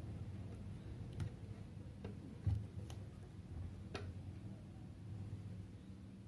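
Hands handling a Hubsan Zino drone's plastic body while pressing a vinyl skin onto it: four scattered light clicks and one soft thump about two and a half seconds in, over a low steady hum.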